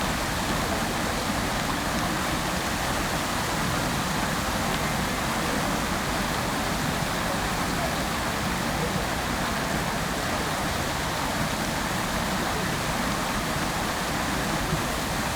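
Fountain water falling and splashing steadily into its basin: an even, unbroken rushing noise.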